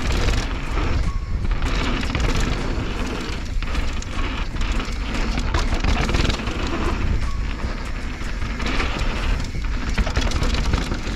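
Wind buffeting the microphone over the noise of a mountain bike rolling fast down a dry, loose dirt trail. The tyres crunch on grit and gravel, and frequent small rattles and knocks come from the bike over bumps.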